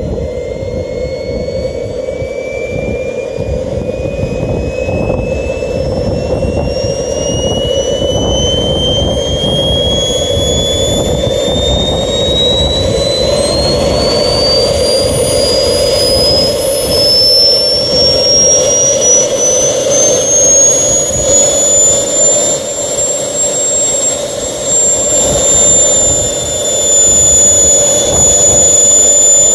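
Turbine engine of an Avanti S radio-controlled model jet starting up: a high whine climbs steadily in pitch for about twenty seconds, then holds at one steady pitch as the turbine settles at idle, over a constant rushing noise.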